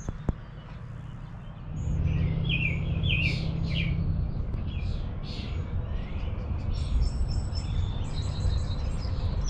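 Small birds chirping and trilling over a steady low rumble, which swells about two seconds in.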